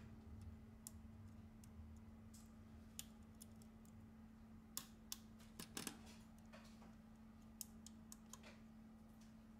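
Faint, irregular clicks and taps of a plastic pry tool pressing flex-cable connectors down onto a tablet's circuit board, over a steady low hum.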